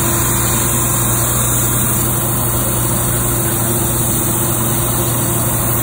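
CWI SandX 26-inch dual drum sander running with a thin board feeding through on its conveyor belt: a loud, even machine drone with a steady low hum.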